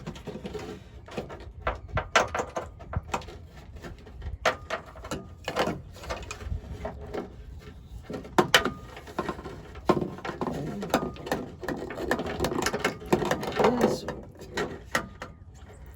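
Irregular clicks, taps and rattles of a wire harness and plastic parts being handled and fed through a hole in the truck's tailgate.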